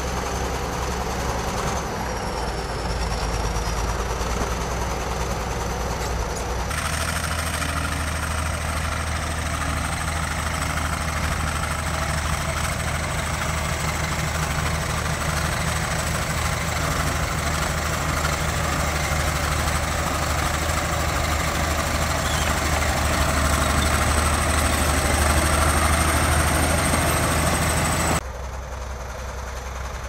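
Shantui SD22 crawler bulldozer's diesel engine running steadily under load as the dozer pushes dirt, a low hum with a thin high whine over it. The sound changes abruptly a few times and drops quieter near the end.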